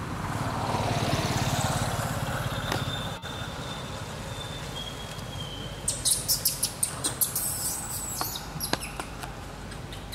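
A vehicle passing on the road, a rush that swells and fades over the first few seconds, then a quick run of high, sharp bird chirps about six seconds in.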